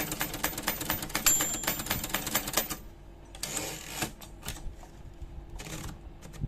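Remington Monarch manual typewriter being typed on: a fast run of key strikes, with a single bell ding about a second in. The typing stops near halfway, followed by two longer rasping sweeps with a few scattered clicks.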